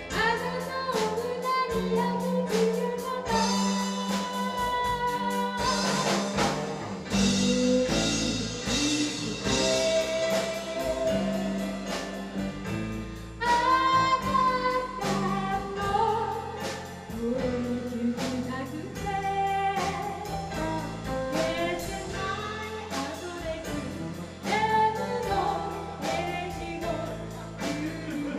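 Live band performing a song: a woman's lead vocal sung over electric bass, keyboard, electric guitar and a drum kit keeping a steady beat.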